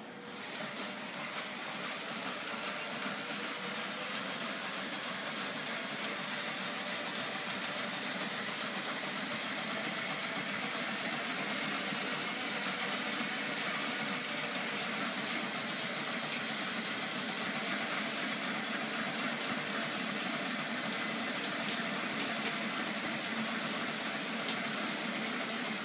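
Battery-powered 12-volt electric motor driving a homemade ornithopter's wooden flapping wings: a steady whirring, hissing run. It builds up over the first second or so and cuts off suddenly at the end.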